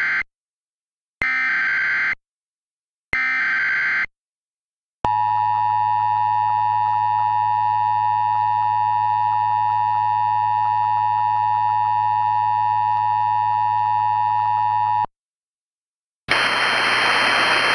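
Mock Emergency Alert System signal: the end of one SAME header data burst and two more screeching bursts, each about a second long, then the steady two-tone EAS attention signal sounding for about ten seconds before cutting off. Near the end a steady hiss starts.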